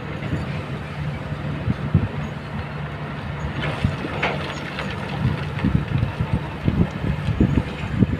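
Kobelco hydraulic excavators' diesel engines running steadily, with sharp knocks and clatter of stones as the bucket digs into a pile of loose rock, heaviest in the second half.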